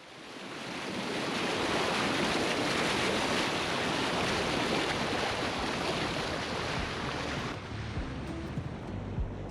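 Steady rush of wind and water from a sailboat under way, fading in at the start. Music comes in near the end.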